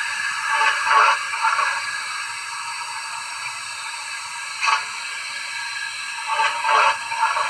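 Steam locomotive sounds from a Zimo sound decoder in a Bachmann GWR 56xx 0-6-2 tank model, played through its small speaker. A steady steam hiss runs throughout, with a few brief louder puffs about a second in and again near the end.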